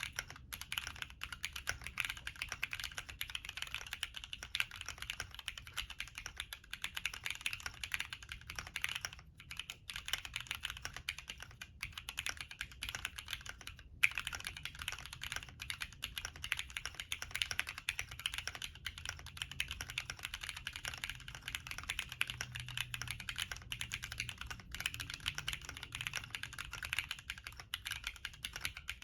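Fast continuous typing on a Cannonkeys Bakeneko60 mechanical keyboard with lubed, spring-swapped Cherry MX Black linear switches and PBT keycaps, its case filled with polyfil. There is a brief pause about nine seconds in and one louder keystroke about fourteen seconds in.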